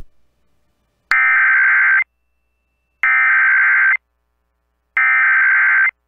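Emergency Alert System SAME header: three buzzy digital data bursts, each about a second long and a second apart, the coded tones that open an alert message, here for an AMBER Alert test.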